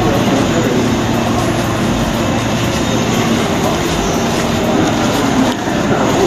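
Steady, loud rumbling noise with a low hum beneath it, even and unbroken.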